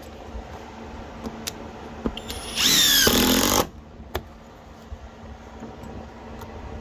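Flex FX1331 compact cordless impact driver running for about a second as it drives a fastener, with a few light handling clicks before and after.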